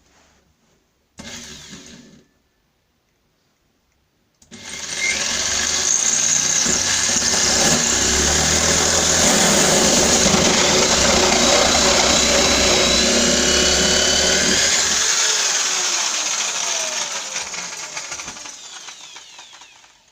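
A power drill driving a 54mm hole saw through a wooden door. After a short burst about a second in, it starts about four seconds in and runs loudly and steadily as the saw cuts through. It then winds down over the last few seconds, its whine falling in pitch.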